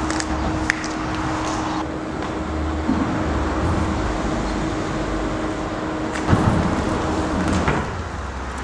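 Steady rumble of road traffic on the bridge overhead, with a faint steady hum, a few short knocks, and a louder knock a little after six seconds.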